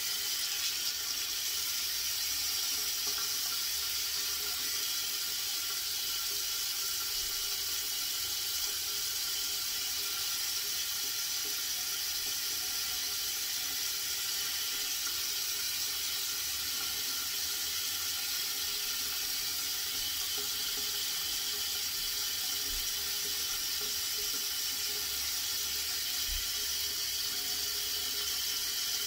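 Running water, a steady even hiss.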